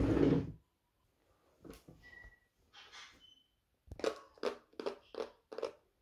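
A drawer slides open with a deep thunk, followed by quieter handling sounds. Near the end comes a quick run of about seven short rustling or tapping sounds.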